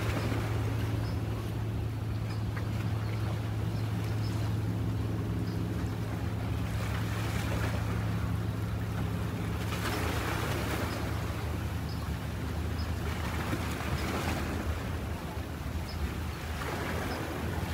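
A boat engine running with a steady low hum that fades out about two-thirds of the way through, with several gusts of wind rushing across the microphone.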